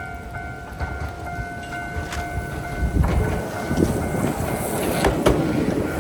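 Level crossing alarm ringing in a steady repeating tone, then from about three seconds in an Iyo Railway 700 series train passes over the crossing with a rising rumble and a few wheel clacks over the rail joints near the end.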